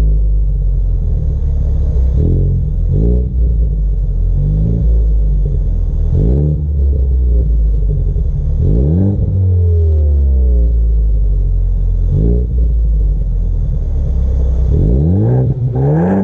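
2018 Ford Focus ST's turbocharged 2.0-litre four-cylinder breathing through a Mountune cat-back exhaust, recorded close to the tailpipes, revved while standing still. About six quick blips each rise sharply and fall back to a steady idle.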